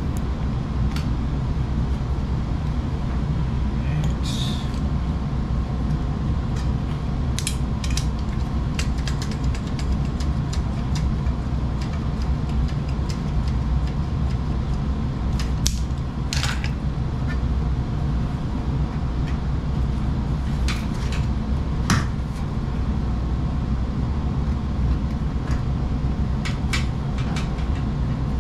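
Scattered clicks, taps and light scrapes of hand tools working copper refrigerant pipe, over a steady low hum.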